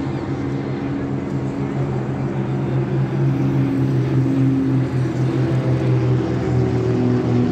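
Formation of three propeller aircraft flying overhead, their engines and propellers making a loud, steady drone whose pitch wavers slightly as they pass.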